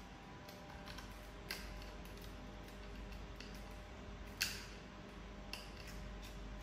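Small, faint plastic clicks and taps from hands handling the tank robot's circuit board and motor wire connectors, with one sharper click about four and a half seconds in.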